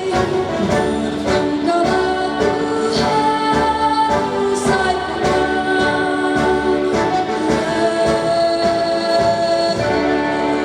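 Female solo voice singing held, sustained notes over musical accompaniment.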